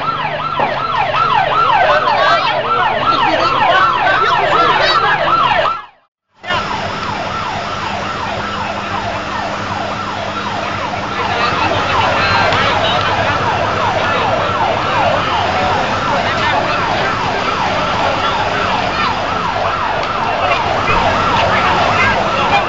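Emergency vehicle siren in a fast yelp, its pitch sweeping up and down several times a second. It cuts out for about half a second some six seconds in, then carries on.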